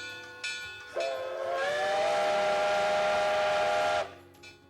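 Steam whistle of Canadian Pacific 4-6-2 No. 1293 blowing one long blast of about three seconds. The blast starts about a second in, slides up slightly in pitch as it opens, then holds steady and cuts off sharply.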